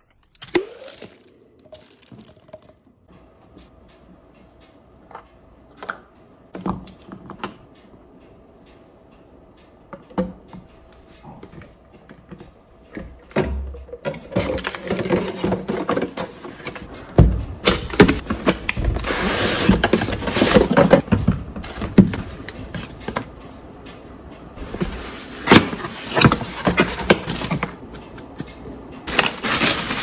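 Cardboard box and plastic wrapping being handled while unpacking an electric coffee grinder: rustling and scraping with scattered clicks and knocks. It is sparse at first and densest through the middle and again near the end. A sudden thump about half a second in.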